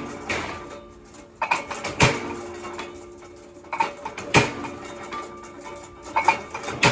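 Sharp metal clanks and knocks in an irregular run, about eight strikes, each leaving a short metallic ring.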